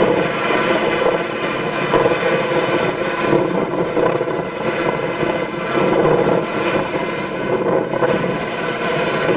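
Engine of a large farm machine running steadily under load, with a dense mechanical din that swells and eases slightly.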